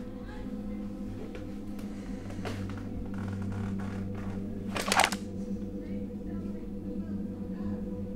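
Low, sustained ambient music drone of held tones, with a sharp, brief noisy hit about five seconds in.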